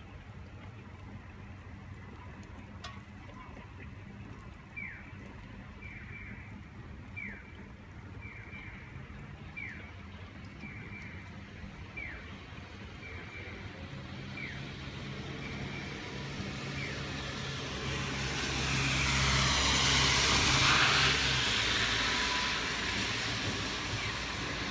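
A motor vehicle approaches and passes on the rain-wet street: a low engine hum and a tyre hiss that swell to a peak about twenty seconds in, then fade. Earlier, a short, high, falling chirp repeats about once a second for some twelve seconds.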